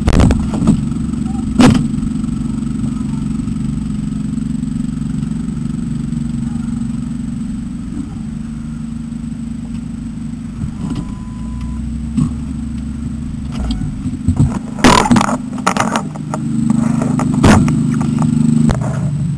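Vehicle engine and road noise heard from inside the cab, a steady low rumble. A sharp knock comes early, and several knocks and clatters come near the end as the control pole is moved out of the vehicle.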